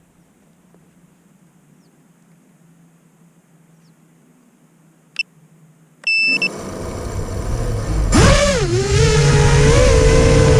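Faint hiss, a click, then a short loud beep about six seconds in, after which an FPV quadcopter's motors and propellers spin up. The whine jumps sharply about eight seconds in and then wavers in pitch with the throttle.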